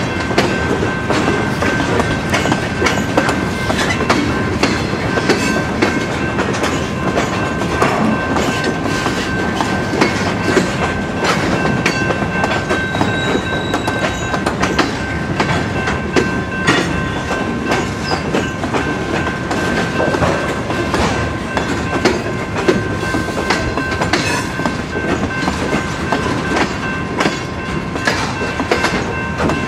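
Huron & Eastern freight train cars rolling steadily past: a continuous clatter of wheels over the rail joints, with a thin, steady high ringing tone held above it.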